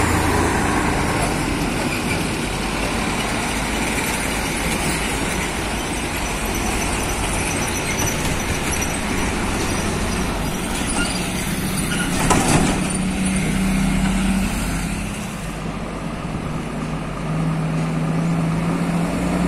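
Heavy diesel trucks pulling lowbed trailers loaded with excavators, their engines running as they roll past, over traffic noise. There is a brief sharp sound about twelve seconds in.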